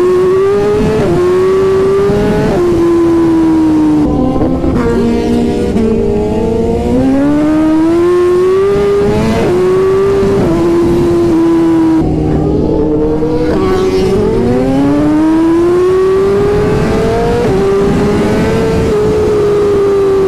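BMW inline-four superbike engine under hard acceleration, its pitch climbing and dropping sharply at each upshift, then holding steady at speed near the end. Wind rushes over the rider's microphone at highway speed.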